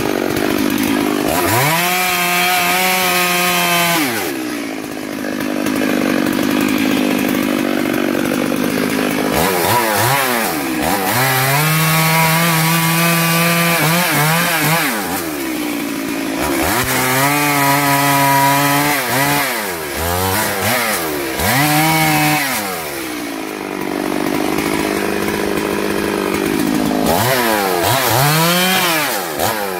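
STIHL MS 382 two-stroke chainsaw cutting through fallen palm stems. It revs up to full throttle about five times, holding there for a few seconds each time, and drops back to idle between cuts.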